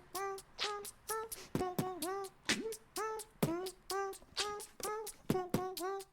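Background music: a rhythmic pattern of short vocal syllables, about three a second, with no bass line.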